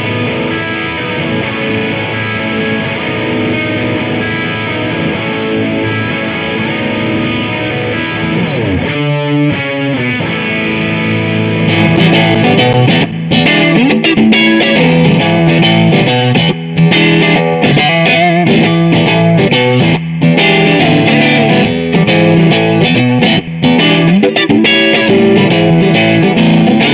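Electric guitar played through a Mesa/Boogie Mark Five: Twenty-Five tube amp. A steady passage for the first several seconds thins out around 9 seconds in, then from about 12 seconds in comes a louder passage of single notes and chords on the amp's clean channel with reverb, broken by a few short, sharp stops between phrases.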